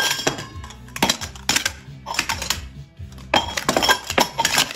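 Stainless steel sport-stacking cups clinking and clattering against each other and the mat as they are stacked at speed into a 3-6-3 pyramid, in several quick bursts of metallic clicks with short ringing.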